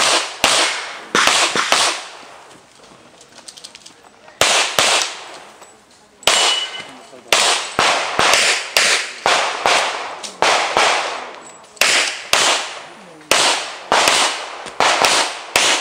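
Pistol shots fired rapidly in pairs and quick strings, with short pauses of a second or two between groups, each shot sharp with a brief echoing tail.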